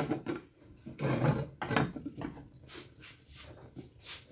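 A few dull knocks and scrapes of a ceramic plate against a frying pan as the pan is lifted off the gas hob and turned over onto the plate, the loudest clatter about a second in.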